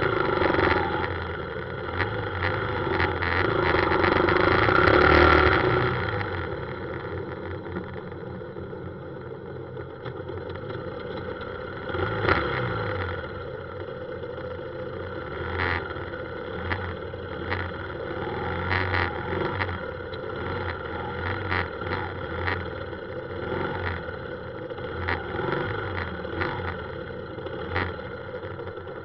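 Motorcycle engine and road noise from riding through slow, dense city traffic of motorbikes and cars, louder for the first six seconds or so, then steadier and quieter, with scattered short knocks and clicks.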